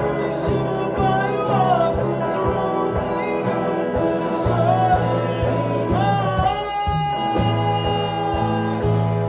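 Music: a song with a singing voice and guitar over steady bass notes and a regular beat, with one long held note in the second half.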